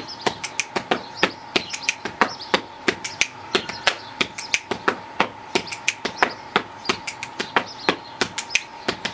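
Body percussion: a rhythmic phrase of hand claps, finger clicks and slaps on the chest and thighs, about three to four sharp strikes a second.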